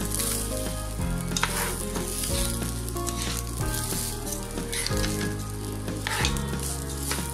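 Washed kalijira rice frying and sizzling in oil in a pan, stirred and scraped with a spatula as it is toasted before the liquid goes in. Held background music notes change about every second underneath.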